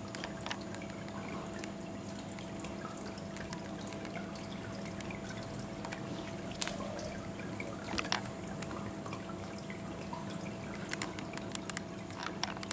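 Electric pet water fountain running: water trickling steadily over a constant low pump hum, with a few scattered sharp clicks.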